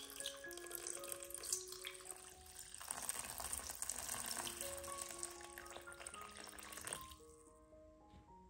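Water pouring into a stainless steel pot, filling it; the pouring stops about seven seconds in. Light background music with bell-like mallet notes plays throughout.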